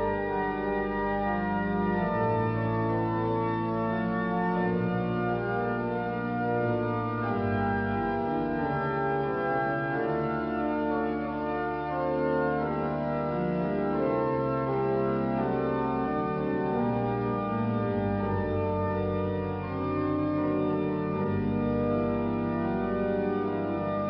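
Church organ playing slow, held chords with deep bass notes, the chords changing every second or two.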